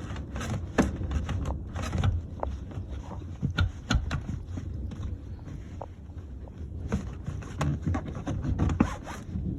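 Rear seat side section of a Toyota Camry being worked loose and pulled out: upholstery and plastic scraping, with a string of irregular clicks and knocks.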